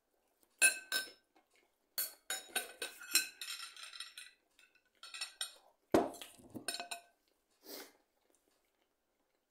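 A fork and knife clinking and scraping against a plate in irregular clusters, with a heavier knock about six seconds in.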